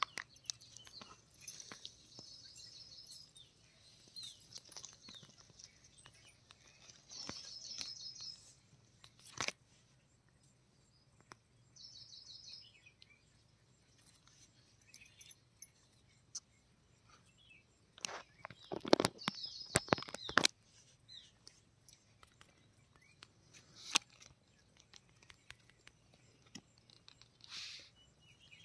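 Small birds chirping in short high trills every few seconds, with crunching and tearing of crisp fried fish at intervals; the loudest is a cluster of crunches about two-thirds of the way in.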